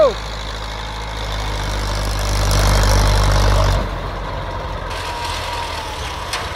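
Massey Ferguson 265 tractor's three-cylinder diesel engine revving up under heavy load as it strains to pull a loaded trolley out of soft ground, then dropping back suddenly about four seconds in and running on more quietly.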